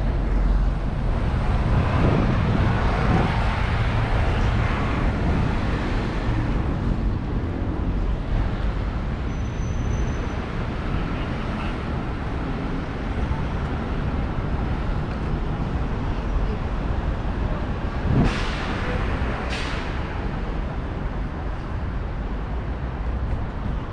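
City street traffic: a steady rumble of passing cars and buses, heaviest in the first few seconds. About three quarters of the way in come two short, sharp hisses about a second and a half apart.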